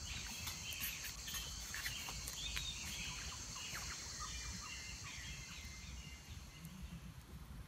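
Outdoor meadow ambience: insects chirring steadily in the grass, with a few faint bird chirps and a low rumble underneath.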